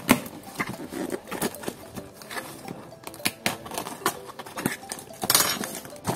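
Cardboard parcel being opened by hand: packing tape slit and cardboard flaps pulled and handled, a run of irregular scrapes, crackles and rustles with a louder burst of rustling about five seconds in.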